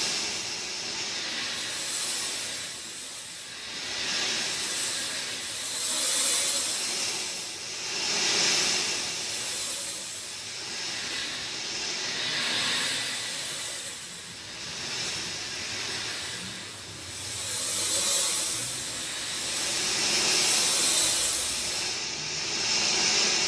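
Rain falling: a steady, hissing wash that swells and eases every few seconds.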